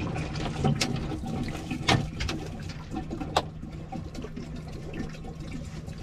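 Water pouring and glugging out of a large plastic water bottle into a container, with a few sharp knocks of plastic. A steady low hum runs underneath.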